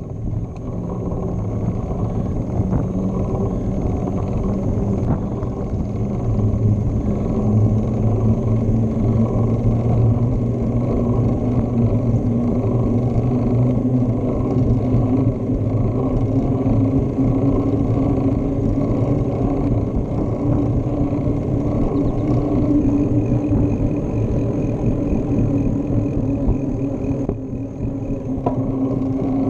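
Bicycle rolling along pavement, a steady low rumble with a faint hum that slowly rises in pitch, picked up through a handlebar-mounted camera.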